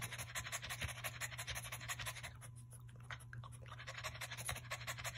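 French bulldog in early labour panting rapidly and rhythmically, faint, over a steady low hum; the panting thins out briefly about halfway through.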